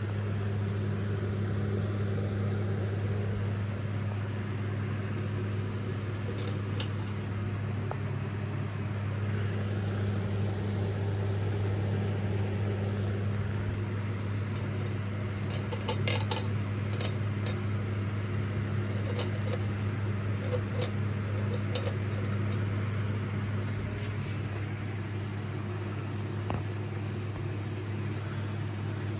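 Pixar Cars themed ceiling fan running with a steady low hum. Scattered light clicks come through in the middle stretch.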